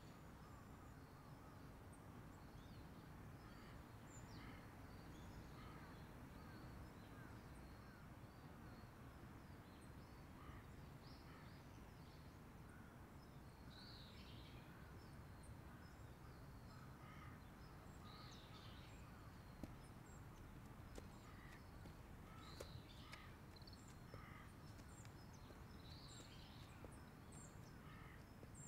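Faint outdoor ambience of birds: many short chirps and calls scattered throughout, over a low steady rumble.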